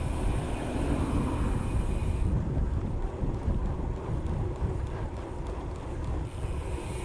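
Wind buffeting the microphone while riding a bicycle, a gusty low rumble.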